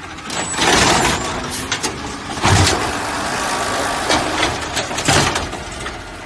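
Garbage truck running, with louder surges of mechanical noise about half a second in, around two and a half seconds and again around five seconds.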